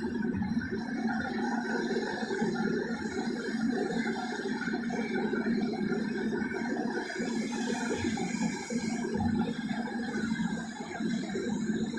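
Heavy earthmoving machinery running steadily, the diesel engine of a large mining excavator at work.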